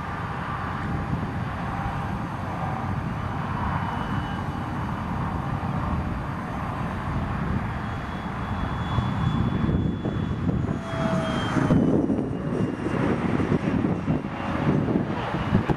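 Electric ducted fan of a radio-controlled Sabre jet model whining in flight. Its high whine slides down in pitch about eleven seconds in as the model passes. Under it is a low rumble that grows louder and more uneven in the second half.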